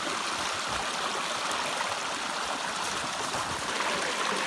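Mountain stream flowing steadily, a constant rush of water.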